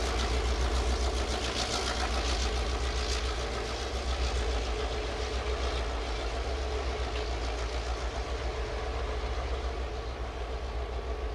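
EMD F59PH diesel-electric locomotive working as its passenger train pulls away from a station stop, a steady low pulsing engine rumble that eases slightly near the end.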